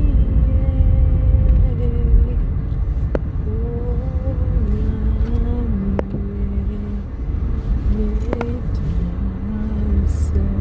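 Car cabin noise while driving: a steady low rumble, with a faint tone that shifts in pitch now and then and a few sharp clicks.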